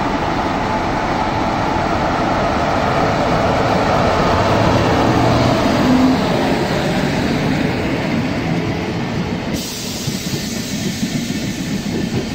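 Class 143 electric locomotive pulling a rake of n-Wagen passenger coaches past as the train departs. The noise builds to its loudest about halfway through as the locomotive passes, then the coaches' wheels roll by with an uneven clicking over the rail joints.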